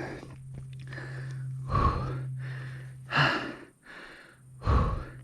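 A person's heavy, labored breathing from hard exertion on a steep climb: loud gasping breaths about every second and a half, over a steady low hum.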